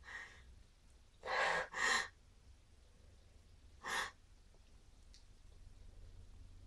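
A person's breathy gasps, the hitching breaths of a sneeze build-up: two loud, quick ones about a second and a half in, then a shorter one near four seconds.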